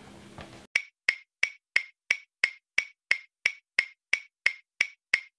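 Clock-like ticking of a quiz timer sound effect: evenly spaced sharp ticks, about three a second, starting just under a second in.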